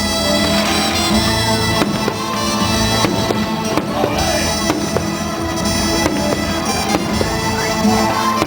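Fireworks bursting with several sharp bangs over loud instrumental show music with held tones.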